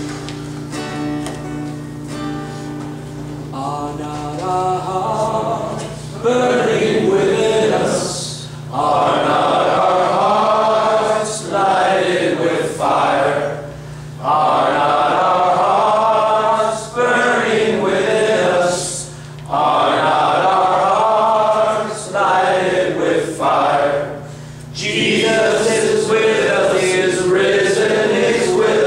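A group of men singing a worship song together, in phrases broken by short pauses for breath; the singing builds in over the first few seconds.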